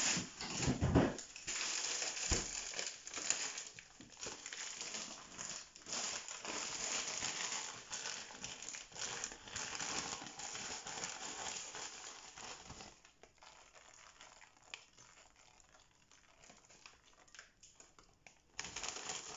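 Plastic bag crinkling and rustling as grated cheese is handled and sprinkled over a baking dish. It is busiest for the first two-thirds, then fades to soft scattered rustles and light clicks.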